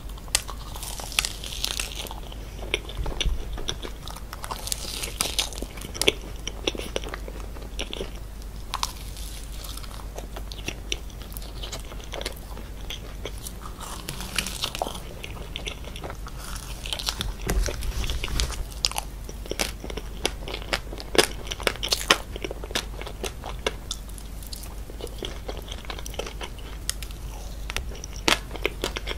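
Biting and chewing of a chocolate-shelled mousse cake, the hard chocolate coating cracking in many irregular, sharp crunches.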